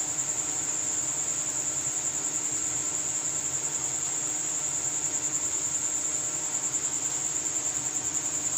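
An insect trilling: one steady, high-pitched, rapidly pulsing tone that does not break.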